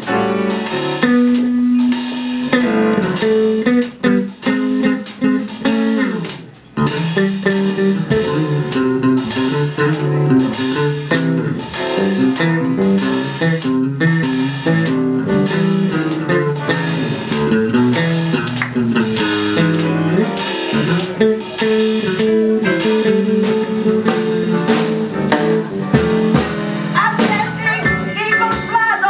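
Live band music in an instrumental stretch of a song: guitar over bass and a steady drum beat. A singing voice comes in near the end.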